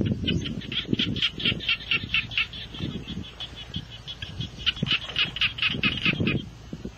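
A bird calling: a rapid run of sharp, repeated squawking notes, about six a second, in two bursts with a pause between, over uneven rustling and handling noise in the grass.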